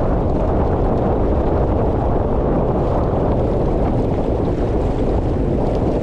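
Steady wind noise buffeting the camera microphone, with water rushing along the hull of a small sailboat under sail.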